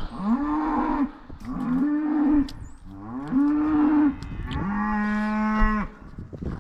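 Cattle bawling: a run of four loud calls, each rising then holding for about a second, the last one longer and lower in pitch.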